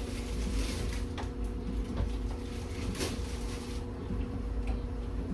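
Kitchen clean-up noises: light knocks and handling with a brief rushing hiss near the start and again about three seconds in, over a steady low hum.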